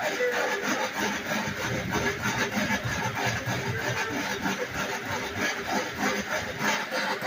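A dog running on a wooden slatmill: its slats and frame clatter in a steady, rapid rhythm under the dog's feet.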